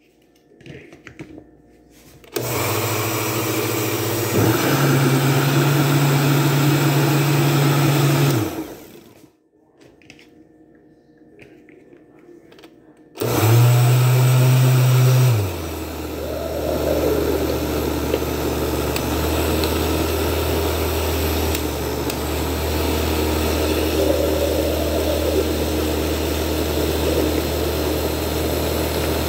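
Countertop blender blending a smoothie, in two runs. The first lasts about six seconds and steps up in speed partway through. After a pause of a few seconds it starts again at high speed, then drops to a lower, steady hum.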